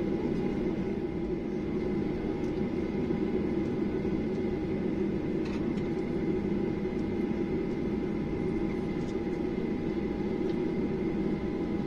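Cabin noise of a Boeing 737-800 taxiing: the steady hum of its CFM56-7B engines at low power, with a thin, steady high whine over it.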